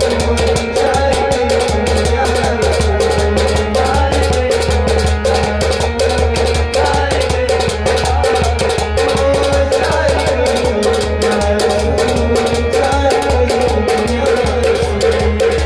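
Harmonium playing a melody over sustained reed notes, with a fast, steady percussion beat of sharp shaker-like strokes.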